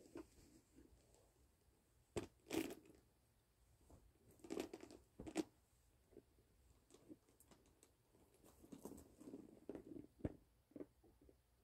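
Faint handling noises: a cloth dust bag rustling as a handbag is slid out of it and lifted, with a few light knocks scattered through.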